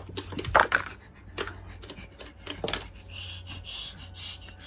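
Clicks and knocks of plastic being handled, then a scraping rub of about a second and a half: a Talk Along card sliding through the DWE card reader.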